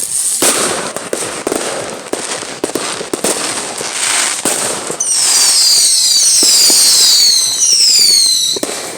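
Firecrackers going off in a rapid, crackling string of pops. About five seconds in they give way to several whistling fireworks at once, each whistle falling in pitch. The whistles are the loudest part and last about three and a half seconds.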